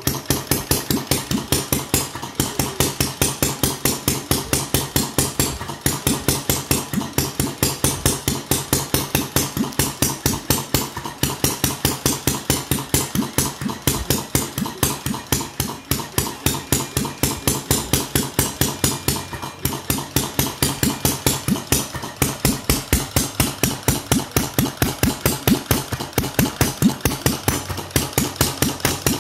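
Bengs Modellbau 'Karl' model hit-and-miss stationary engine running slowly at about 200 rpm, with a steady, even clatter of about three sharp clicks a second.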